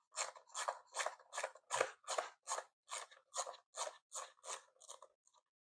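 GEARPASS 24-in-1 magnetic ratchet screwdriver with its 58-tooth ratchet clicking in short rasping bursts, about two and a half a second, as the handle is swung back and forth to back a screw out.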